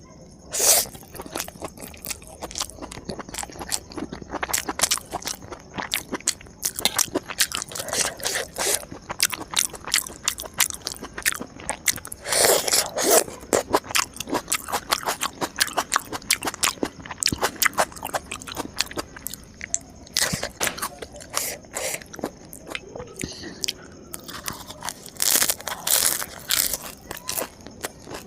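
Close-miked eating of crisp food: many sharp crunches and bites with chewing in between. The loudest clusters of crunches come about halfway through and again near the end.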